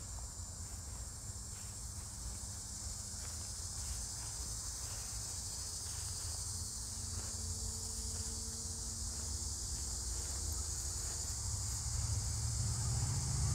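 Evening chorus of crickets, a steady high shrill drone, over a low rumble that grows louder near the end.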